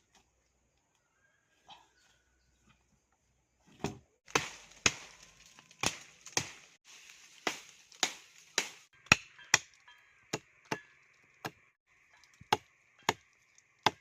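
Wood being chopped with a blade: a series of sharp chops, about one or two a second, starting about four seconds in.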